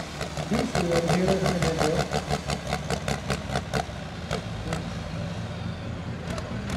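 Ford 7700 pulling tractor's engine labouring at the end of its pull, with an even beat of sharp firing pulses about eight or nine a second, then easing to a quieter, steadier run after about four seconds.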